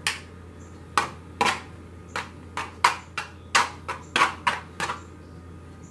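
End of an egg beater tapping against a cookie sheet while swirling dye through shaving cream: a string of light, irregular clicks and knocks, about two or three a second.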